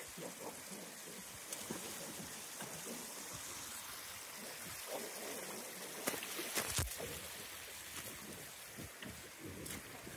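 Shallow, rain-swollen stony river rushing and trickling over rocks, with splashing steps through the water, loudest about six to seven seconds in.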